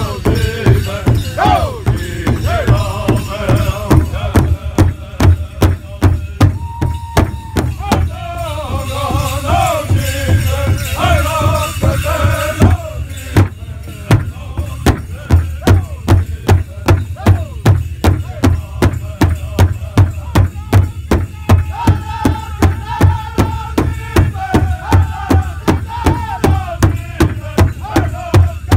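Powwow drum group performing a straight dance song: several men singing together over a large powwow drum struck in unison on a steady, even beat.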